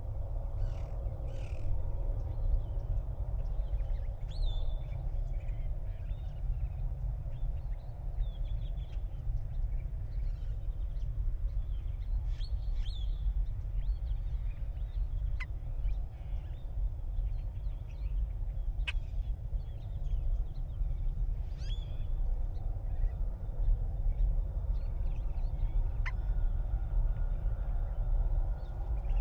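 Scattered calls and quick chirps from desert birds over a steady low rumble.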